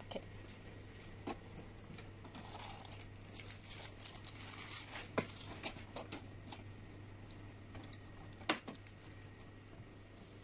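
Clear plastic bag of sewing-machine accessories crinkling while small metal presser feet and plastic tools are handled and set down, clicking and clinking on a table, with a few sharper knocks.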